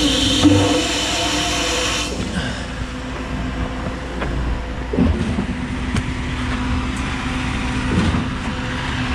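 An engine running steadily, with a few short knocks about five, six and eight seconds in.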